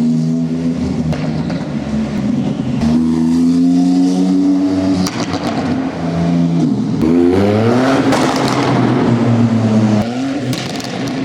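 Performance car's engine and exhaust revving hard, its pitch climbing and then dropping several times, with bursts of exhaust crackles and pops as the revs come down.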